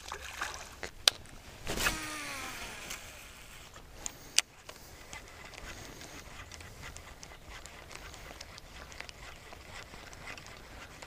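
A splash on the pond surface at the start, a short sound with a falling pitch about two seconds in, and two sharp clicks around four seconds in. After that come faint, irregular ticks as a baitcasting reel retrieves a topwater frog lure.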